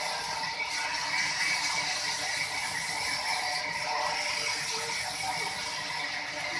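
Sawmill machinery running with a steady, dense mechanical rattle.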